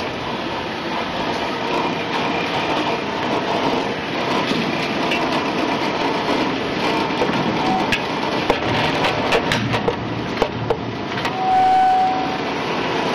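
Stainless-steel continuous fryer running with a steady mechanical hiss and hum. Peanuts are tipped from a perforated metal scoop into its feed hopper, rattling and clicking in a cluster of sharp knocks past the middle. A short squeak sounds near the end.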